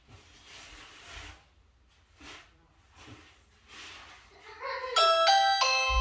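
Ring Chime Pro plug-in doorbell chime playing its ring tone, a bright multi-note ding-dong that starts about five seconds in and rings on, signalling a press of the Ring doorbell. Before it there are only a few faint noises.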